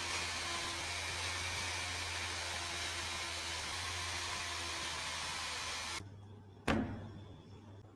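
A steady machine-like rushing noise with a low hum, which cuts off suddenly about six seconds in. Shortly after comes a single sharp metallic knock with a brief ring.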